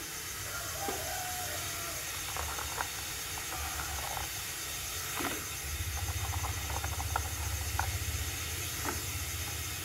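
Pot of water with sliced koro bean pods heating on a gas stove burner: a steady burner hiss with small ticks and pops from the warming water. A low rumble grows stronger about six seconds in as the water nears the boil.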